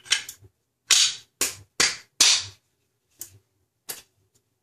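AK-74 rifle parts clacking metal on metal as they are handled and fitted together: about seven sharp clacks, the loudest four in quick succession in the middle.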